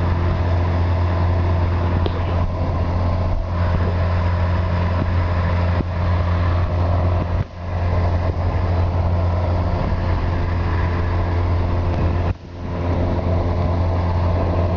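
Boat motor running steadily at a constant speed, a loud low hum with noise over it; the sound briefly drops away twice.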